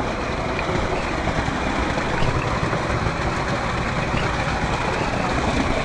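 Steady rush of water pouring out of a fish pond, an even noise that holds without a break.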